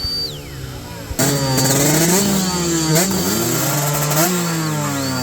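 Racing motorcycle accelerating hard through the gears: the engine note climbs and drops sharply at each upshift, three times in quick succession, and gets louder from about a second in.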